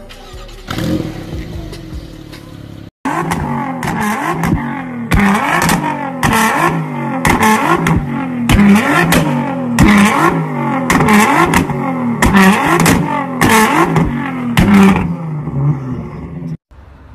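Nissan GT-R's twin-turbo V6 blipped up and down over and over, about once a second, with sharp cracks and pops from the exhaust as it shoots flames. It starts suddenly about three seconds in and cuts off shortly before the end.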